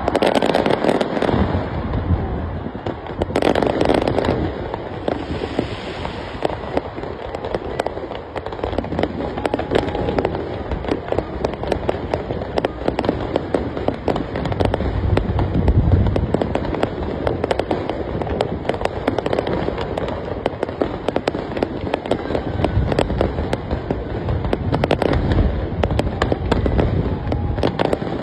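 A fireworks display: a dense, continuous run of bangs and crackling, with heavier booms now and then.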